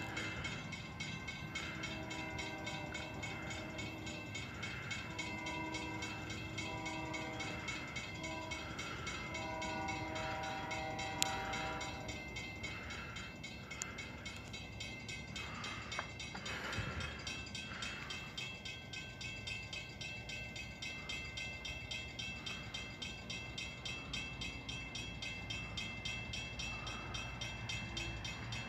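A locomotive's multi-chime air horn sounds a chord in a series of blasts over the first twelve seconds as a train approaches. After that the horn stops and a low rumble carries on, with faint regular pulses.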